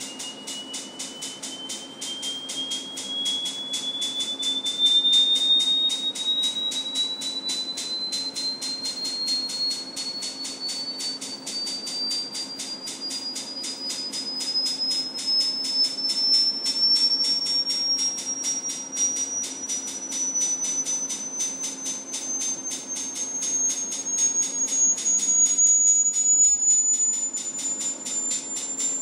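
A pure sine test tone sweeping slowly and steadily upward in pitch, used to probe the concrete pyramid's acoustic resonances. Underneath it run a steady low hum and a fast, even ticking.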